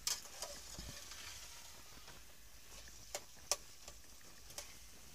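Metal spatula stirring cooked pumpkin sabzi in an aluminium pot over a faint sizzle, with a few sharp clicks of the spatula against the pot's side.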